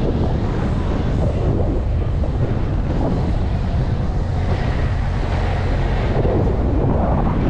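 Wind rumbling on the microphone mixed with road noise from a moving car, steady and low.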